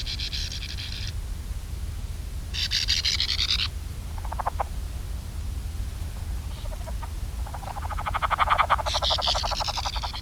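Frogs calling in rapid pulsed trills, several overlapping: higher-pitched trills near the start and end, and a lower trill that builds in the last few seconds. A low steady rumble runs beneath.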